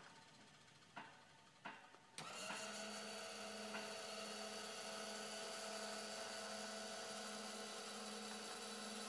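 Electric linear actuators extending to push up a hinged plywood fan-box lid: a couple of faint clicks, then about two seconds in a steady electric motor-and-gear whine starts suddenly and keeps going.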